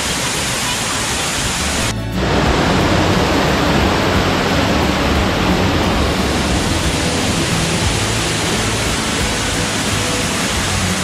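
Steady rushing roar of a nearby waterfall, loud and even, with a brief dip about two seconds in; music plays under it after that.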